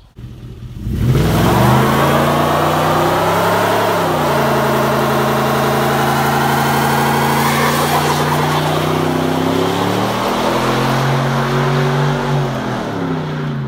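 A 5.3-litre V8 in an OBS GMC pickup revving hard during a burnout, with the rear tyres spinning and squealing. The engine comes in loud about a second in and holds high revs, dipping briefly about four seconds in and again near the end.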